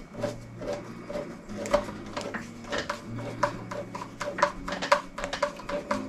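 Background music: a held bass line under quick, clicking percussive beats.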